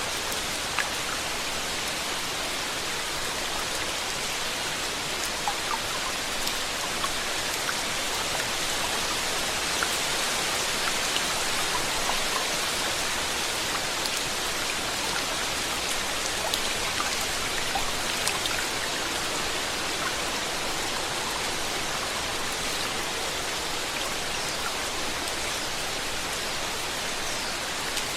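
Steady rainfall, an even hiss with scattered individual drops ticking on a surface.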